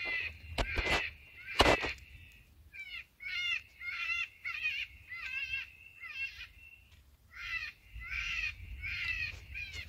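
Electronic predator call playing a prey-distress call: a run of short, wavering squalling cries, about two a second, over a low rumble. A few sharp knocks come in the first two seconds.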